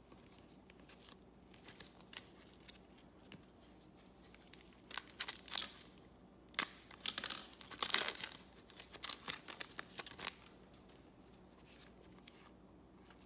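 A trading-card pack wrapper being torn open and crinkled: a run of irregular tearing and crinkling noises starting about five seconds in and ending about ten seconds in.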